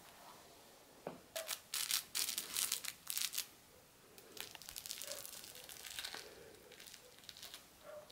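Rough collie puppies chewing and pawing a plush fish toy: bursts of crinkling and rustling, loudest from about one and a half to three and a half seconds in, with softer crinkling again around five to six seconds in.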